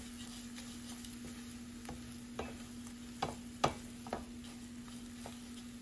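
Wooden spoon stirring toasted vermicelli, nuts and dates in butter in a stainless steel pan: a light sizzle with irregular scrapes and taps of the spoon against the pan, the loudest a little past halfway. A steady low hum runs underneath.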